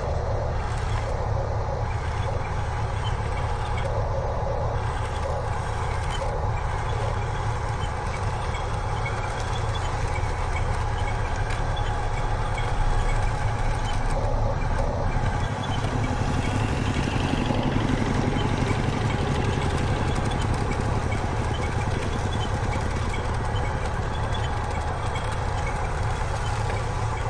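A steady engine-like drone that keeps an even level throughout, with a deep low hum and a rattly mid-range, like a truck idling.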